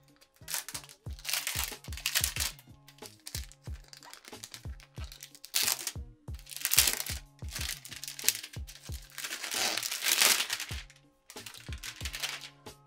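Clear plastic protective sleeve crinkling in several loud bursts as it is pulled off a new laptop, over background music with a steady beat.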